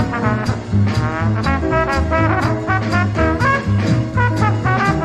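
Background music: an upbeat swing-style tune with a steady beat and sliding melody notes.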